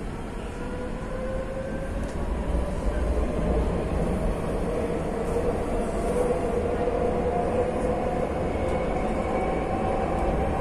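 Madrid Metro train car running, heard from inside: a low rumble with an electric whine that rises slowly in pitch, growing a little louder about two seconds in.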